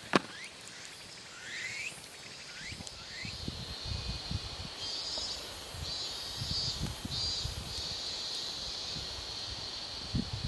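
Outdoor ambience of a campsite: a few short rising bird chirps in the first few seconds, then an insect's high, steady buzz in repeated pulses of about a second each, over soft low rumbling.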